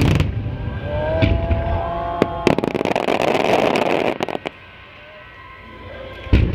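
Starmine fireworks barrage: sharp shell bursts, then a dense stretch of rapid crackling for about two seconds that stops suddenly, a lull, and another loud bang near the end.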